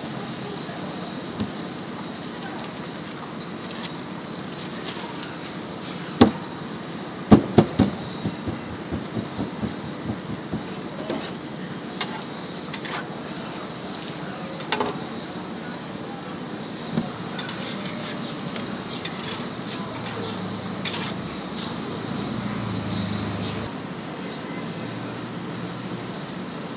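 Street-stall background noise with a few loud sharp knocks, then a run of about a dozen lighter taps, two or three a second, fading away. A low rumble swells and fades in the second half.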